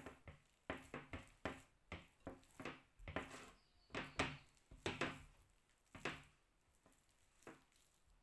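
Black potato masher mashing overripe bananas in a ceramic bowl: a quick run of soft knocks, about two to three a second, that thins out over the last two seconds.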